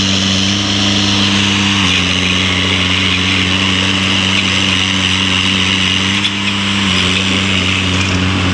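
A compact tractor's engine running steadily, its pitch dropping slightly about two seconds in and again near the end.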